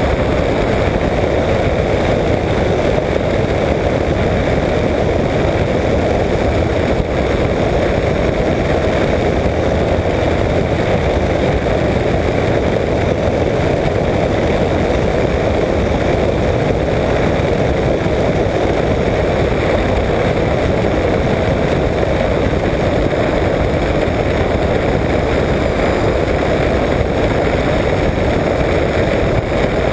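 Apollo Jet Star microlight trike in cruising flight: its engine and pusher propeller run in a steady, unchanging drone, mixed with the rush of airflow over a wing-mounted camera.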